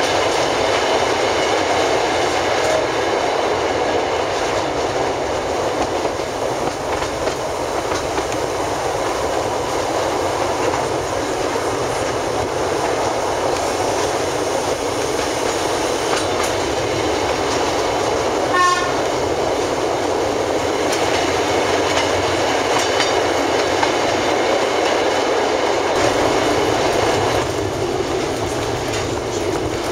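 Narrow-gauge passenger train running, heard from inside an open-sided carriage: a steady rumble with the clickety-clack of the wheels on the rails. About two-thirds of the way through there is one brief high-pitched note.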